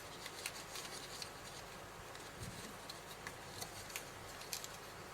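Faint handling sounds of paper card and a thin acetate strip: scattered light clicks and ticks as small pieces are fitted by hand.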